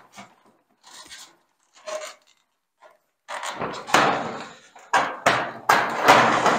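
Tall latched stack of Milwaukee Packout hard-plastic tool boxes being shifted, the plastic rubbing and scraping: faint scrapes at first, then from about halfway several loud rasping scrapes in a row.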